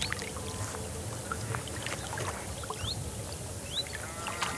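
Small boat on the water: low, steady lapping and rumble around the hull, with scattered light knocks and two short rising chirps near the end.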